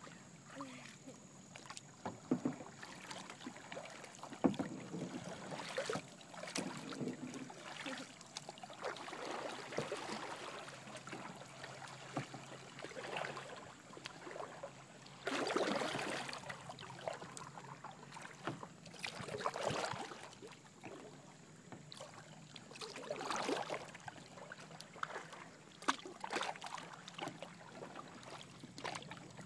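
Kayak paddle strokes in calm river water: the blade dips, pulls and splashes, with drips in between, every few seconds. A few sharp clicks are also heard.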